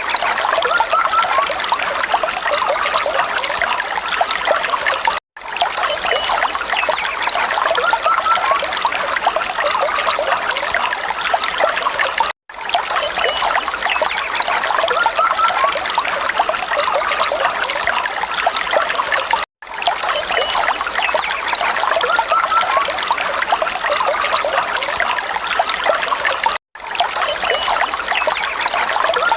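Falling water trickling and splashing steadily. It is a short recording looped about every seven seconds, with a brief drop to silence at each join.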